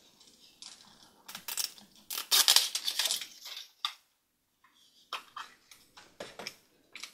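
Toy-surprise packaging being torn open and handled by hand: a run of crinkles, crackles and plastic clicks, loudest about two to three seconds in, pausing briefly just before four seconds.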